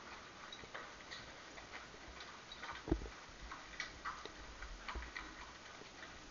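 Faint, irregular clicks and knocks from a horse walking in harness pulling a cart, with one louder thump about three seconds in.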